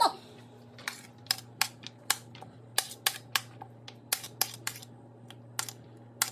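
Kitchen utensil clicking and tapping irregularly, about two to three sharp clicks a second, as chopped filling ingredients are handled, over a steady low hum.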